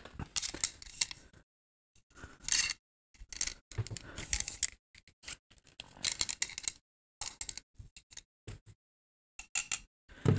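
Small clicks and plastic rustling from handling and unwrapping the parts of a fishing rod-rest set, in short irregular bursts with quiet gaps between.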